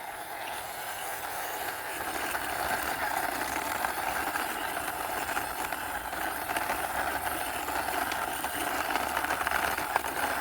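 Plastic wheels of a hand-pushed toy car rolling along the floor, a steady rolling rattle that grows a little louder in the first couple of seconds and then holds.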